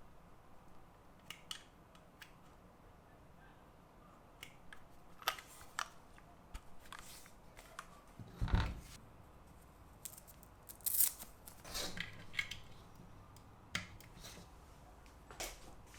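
Hands unpacking a keyboard: scattered short clicks, scrapes and packaging rustles at an irregular pace, with a dull thump about halfway through and a cluster of louder scrapes soon after.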